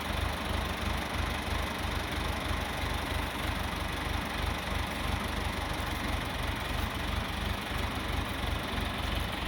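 An engine idling steadily, with an even, rapid low throb.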